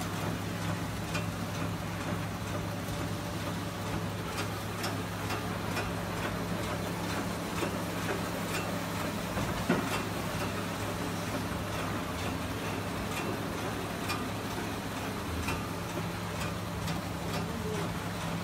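Automatic packing machine for plastic cutlery running: a steady low motor hum with light, irregular clicks of the mechanism, and one sharper click about ten seconds in.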